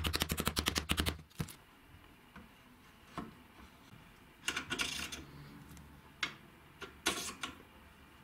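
Small hammer tapping rapidly and evenly on the handle pins, peening the rivets of the sword's grip, and stopping about a second in. After that come a few scattered metallic clicks and scrapes as the screws of a steel clamp jig held in a bench vise are handled and tightened.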